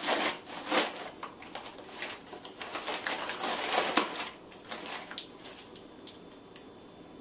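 Paper microwave popcorn bag being pulled open, crinkling and rustling in a dense run of crackles for about four seconds, then only a few scattered crackles.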